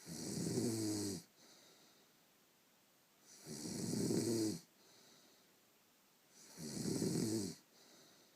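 A woman snoring in her sleep: three loud snores, each a little over a second long and about three seconds apart, each followed by a quieter breath.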